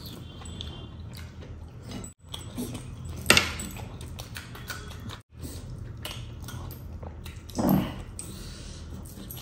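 Close-up eating sounds of a man eating fish with his fingers: chewing and wet mouth noises, with a sharp click about three seconds in and a louder mouth sound near the end. The sound cuts out for a moment twice.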